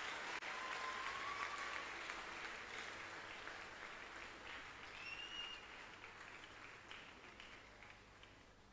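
A congregation clapping, the applause fading gradually and dying away toward the end.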